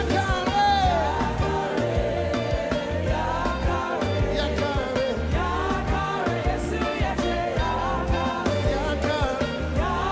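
Live gospel praise-break music: a band plays a fast, steady dance beat with drums and heavy bass while voices sing over it.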